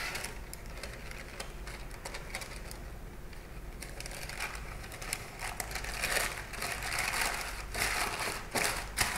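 Rustling and crinkling handling noise in irregular bursts, busier in the second half, with a sharp knock near the end.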